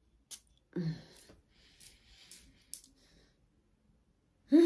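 A woman smelling perfume on a paper tester strip: a light click, a short 'mm', then soft breathy sniffs. A loud, falling sigh begins near the end.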